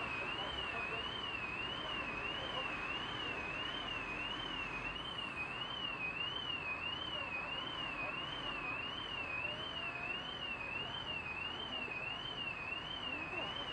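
Car alarm sounding continuously: a single warbling tone that swings up and down about one and a half times a second, over steady street noise.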